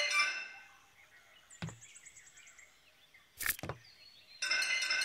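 Cartoon slapstick sound effects. Bell-like music notes fade out, then a sharp hit with a short high ringing trail comes at about a second and a half. A louder double bang follows, likely the toy mallet slamming the floor, and bell-like music notes start again near the end.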